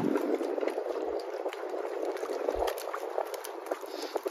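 Water bubbling and splashing, a dense crackle of many small clicks.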